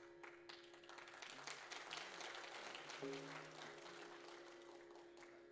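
Faint scattered applause from an audience over a steady instrumental drone of held notes, with a lower note joining about three seconds in; the clapping thins out toward the end.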